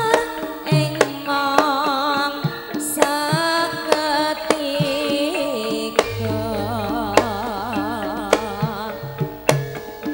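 Javanese gamelan music: a woman sings a high, wavering, ornamented line over hand-drum strokes and steady metallophone tones. A deep low note comes in about six seconds in and holds for about three seconds.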